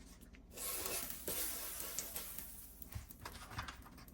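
Pancakes frying in butter on a ceramic electric griddle, a steady sizzling hiss that swells about half a second in and then eases, with a few soft knocks near the end.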